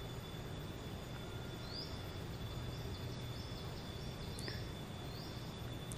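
Quiet forest-pond ambience: a steady high insect drone at one pitch, with short high chirps repeating about once a second.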